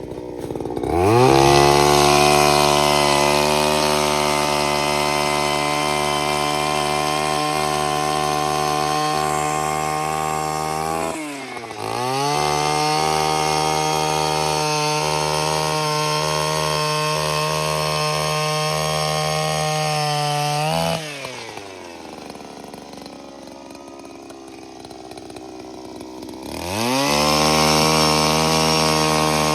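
Power ice auger drilling into lake ice: the motor spins up to a steady whine, winds down briefly and bites again. It slows twice and starts up again near the end.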